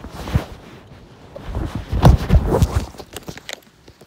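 Handling noise from the recording phone as it is moved with its lens covered: rustling and rubbing with dull thumps, loudest in the middle, then a few sharp clicks near the end.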